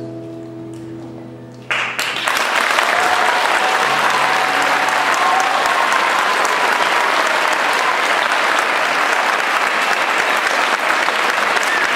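The last held notes of the dance music fade. About two seconds in, an audience breaks into loud, steady applause that carries on to the end.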